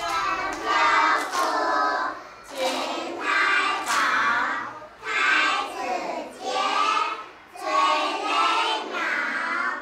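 A class of young children chanting a rhyme in unison with their teacher in short, rhythmic phrases, clapping their hands along.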